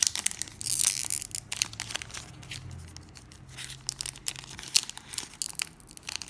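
A foil booster-pack wrapper of Pokémon trading cards being torn open by hand, crinkling and crackling irregularly, with the loudest burst of tearing about a second in.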